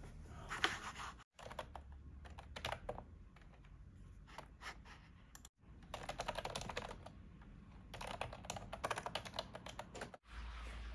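Typing on a retro typewriter-style keyboard with round keycaps: several runs of rapid key clicks with short pauses between them.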